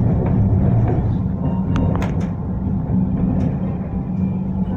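Tram running on its rails, heard from inside the car: a steady low rumble and hum, with a few sharp clicks and brief high squeaks about two seconds in.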